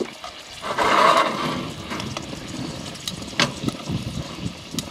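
Venison pieces sizzling in butter in a cast-iron skillet as they are turned with metal tongs. The sizzle surges louder about a second in, and the tongs click sharply against the pan about three and a half seconds in.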